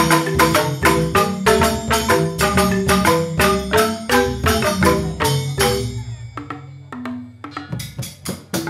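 Balinese joged bumbung gamelan playing: bamboo tube xylophones (grantang) and percussion struck in rapid, dense rhythm. About six seconds in the playing thins to sparse, quieter strikes, then picks up again near the end.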